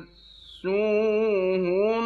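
Male Quran reciter's voice in melodic chanted recitation: a held note ends, a short pause with a breath, then about two-thirds of a second in a long ornamented vowel that wavers up and down in pitch.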